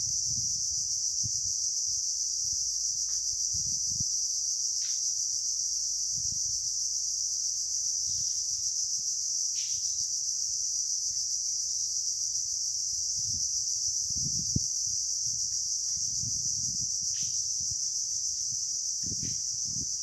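A steady, high-pitched chorus of insects droning without a break in a mangrove forest, with a few short falling chirps over it. Scattered low thumps sound now and then.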